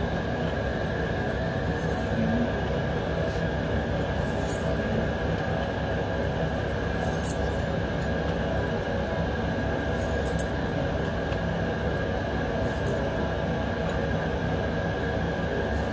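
Gas burner running with a steady rushing noise, lit to heat small steel parts for bluing. A few faint, light clicks now and then.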